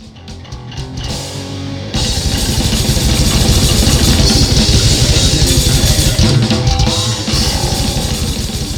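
Heavy metal music with guitar and very fast, dense drumming that comes in at full force about two seconds in, after a quieter opening.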